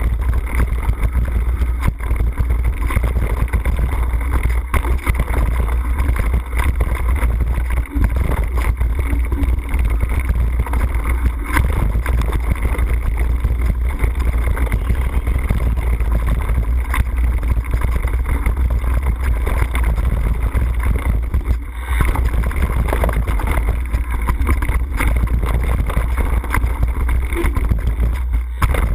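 Mountain bike riding fast down a dirt and gravel trail, heard through an on-board camera: a steady low rumble of wind and tyre noise with frequent knocks and rattles from the bike going over bumps and rocks.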